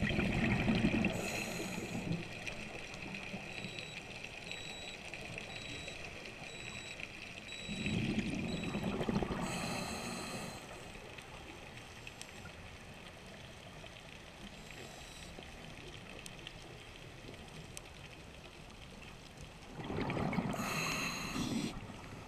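A scuba diver breathing through a regulator, heard underwater: three spells of exhaled bubbles rumbling and gurgling, about ten seconds apart, with a quieter steady hiss between them.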